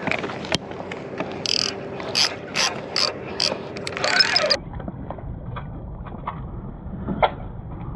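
Old Berkley 808 fishing reel ratcheting in short clicking bursts, a couple per second, while a hooked salmon is fought and reeled up to the surface; the bursts stop a little past halfway through.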